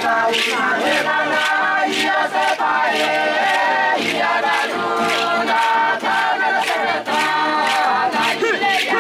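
Group of Trobriand Islands villagers singing a chant together in many voices, over a steady beat of sharp strikes a little under two a second.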